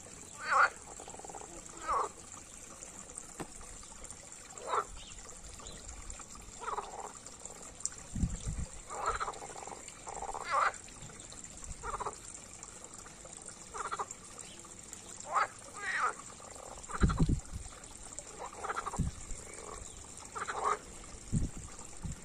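Green frogs croaking in short calls that repeat every second or two, over the steady trickle of a small waterfall. A few low thumps come in the second half.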